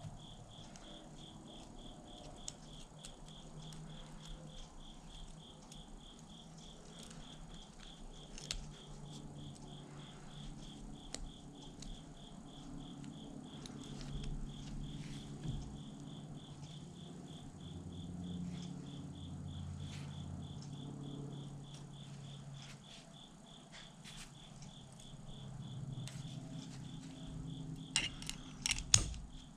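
A cricket chirping steadily, with light metal clicks and taps from a 3/8-drive Plomb ratchet being taken apart by hand. A quick cluster of louder clicks comes near the end as the ratchet head's cover plate comes off.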